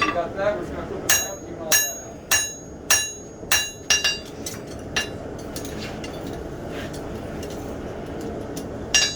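Hand hammer striking hot steel on an anvil, forging a knife blade flat. There are about seven ringing blows roughly every 0.6 s, then a pause, then one more blow near the end.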